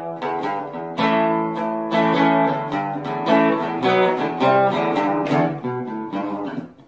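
Guitar music: plucked notes and strummed chords, with a fresh chord about once a second.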